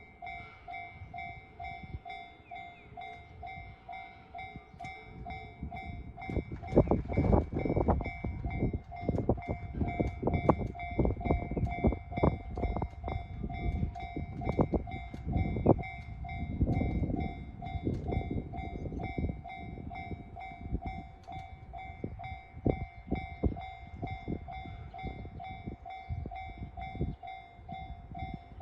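Japanese level-crossing warning bell ringing on and on with a repeating two-tone ding. About six seconds in, a train starts passing through the crossing: a low rumble with irregular clacks of the wheels over the rail joints that goes on under the bell.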